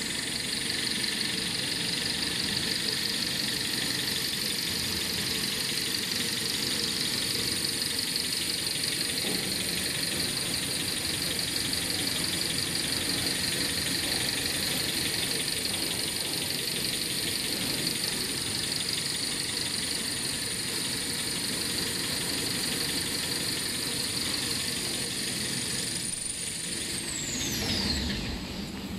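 Toilet paper production line running: steady machine noise with a high, steady whine that drops in pitch near the end.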